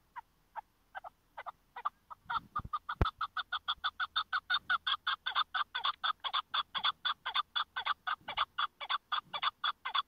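Chukar partridge calling: a long series of short, sharp notes, spaced out at first, then quickening to about five a second and held steady before stopping abruptly. A single low thump about three seconds in.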